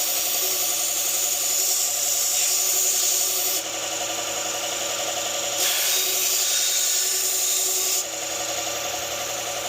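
Knife blade ground against the abrasive of a running powered sharpener in two passes, each a few seconds of grinding hiss over the steady whir of the motor. The passes raise a burr on the edge.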